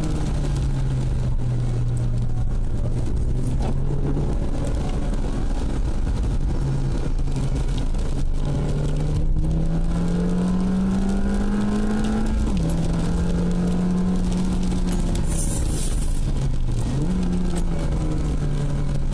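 Ford Puma's engine running under way, heard from inside the cabin. Its pitch climbs slowly and then drops abruptly about two-thirds of the way in, then dips and rises again near the end, over steady tyre noise on the wet road. A brief hiss comes about three-quarters of the way in.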